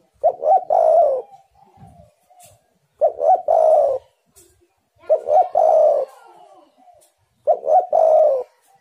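Spotted dove cooing: four loud phrases about two to two and a half seconds apart, each two quick notes followed by a longer drawn note. A fainter dove coos in the gaps between them.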